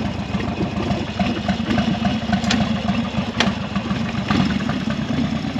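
Motorcycle engine idling steadily, with two sharp clicks about halfway through.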